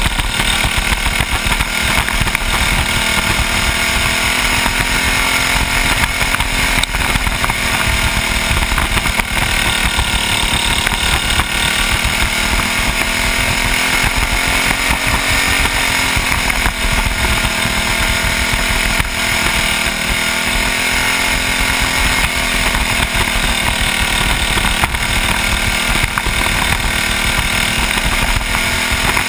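Small single-cylinder kid-kart engine running hard, recorded close on board the kart. Its pitch rises and falls slightly as the kart goes through the turns.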